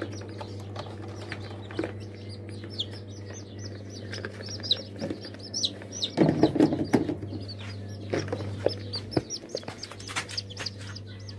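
Newly hatched Shabo (Japanese bantam) chicks peeping over and over in a plastic bucket, short high chirps. Under them runs a steady low hum. About six seconds in the bucket is handled, and there is a louder rustle.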